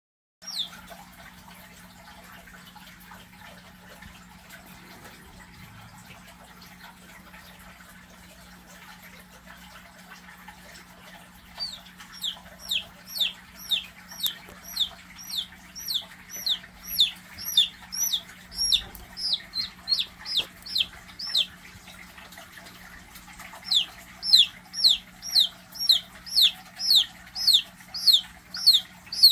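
A young chick peeping: loud, high calls that each fall in pitch, about two a second, beginning about twelve seconds in, with a short pause partway through. A steady low hum runs underneath.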